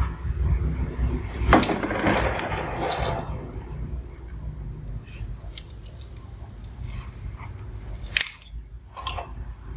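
Steel ruler and steel carpenter's square clinking and scraping on the table as they are put down, picked up and positioned. There is a burst of clatter about a second and a half in, then a few sharp clicks, over a steady low hum.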